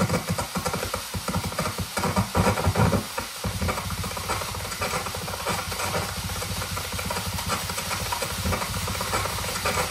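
Live electronic noise music from PA speakers: a dense crackling, hissing texture built from processed field recordings. A heavier, louder low rumble drops away about three seconds in, leaving a steadier crackle.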